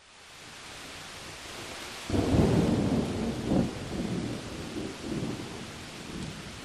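Steady rain hiss with a roll of thunder that breaks in about two seconds in, rumbles in several swells and dies away.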